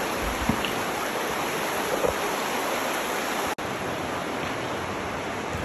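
Steady, even rushing noise of the open air, cutting out for an instant about three and a half seconds in.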